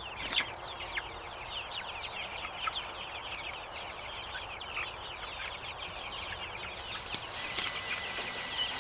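A flock of young chickens peeping constantly in short, falling cheeps, over a steady high insect drone and an insect chirping about three times a second. A single sharp click about half a second in.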